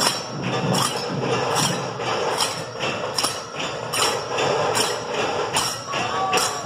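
Lezim and metal jingles clashing together on each beat, a strong jangling stroke a little faster than once a second, over dhol-tasha drumming.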